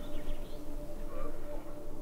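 Ambient background music with long held tones, and a few faint chirps near the start.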